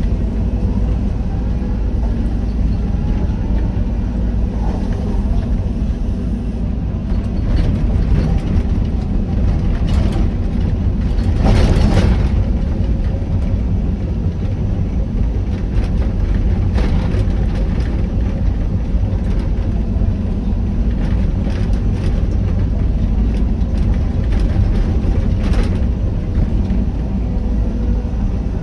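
Excavator's diesel engine running steadily under work, with a few short knocks and one louder surge about twelve seconds in.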